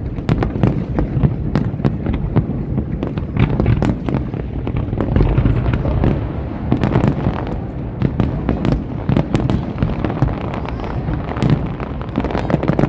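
A fireworks display: a dense, continuous barrage of aerial shell bursts and crackling, many sharp reports a second over a deep rumble.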